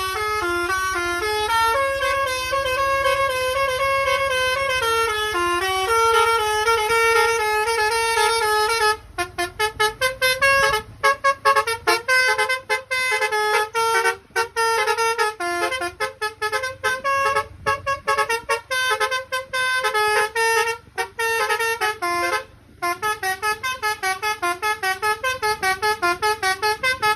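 Basuri telolet musical horn playing a long melody of stepped tones. For about the first nine seconds the notes are held; after that it plays quick, choppy notes with short breaks.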